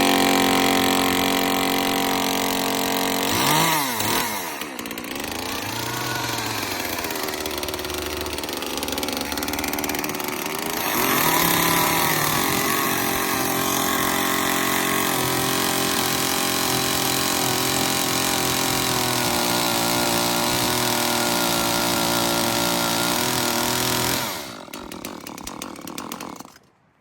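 Echo two-stroke chainsaw running after starting on fresh gas-oil mix. It revs briefly about three seconds in and settles lower, then holds at high revs for about thirteen seconds while cutting wood. It drops off and stops near the end.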